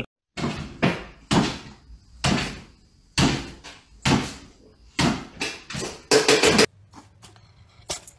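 A series of sharp knocks and bangs, about one a second, with a quick flurry of them about six seconds in.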